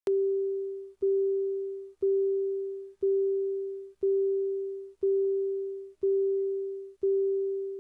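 Countdown beeps on a broadcast slate: a mid-pitched electronic tone that starts once a second, eight times, each beep fading away before the next.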